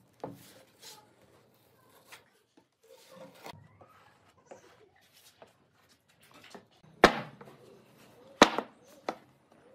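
Faint scraping of a putty knife spreading wood filler, then near the end two loud knocks of solid pine boards set down on a wooden workbench, about a second and a half apart, and a lighter knock after.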